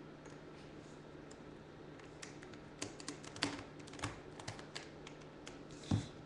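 Plastic Rubik's Cube pieces clicking and knocking as they are fitted back into the cube. Quiet at first, then a quick run of sharp clicks, with the loudest snap near the end.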